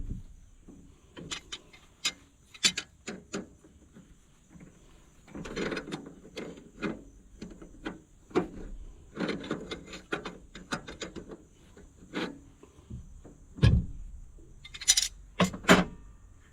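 Loose metal hardware being handled at a tractor's belt pulley shaft: scattered sharp clinks and knocks, with two stretches of rasping, scraping rub near the middle.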